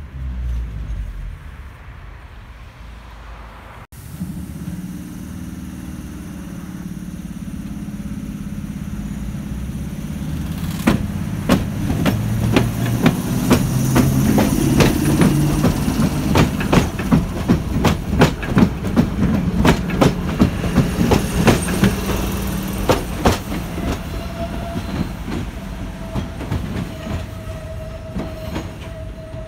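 HÉV suburban electric train passing close by. A low running hum swells, then the wheels click rapidly over rail joints for about ten seconds. A thin steady tone sets in near the end.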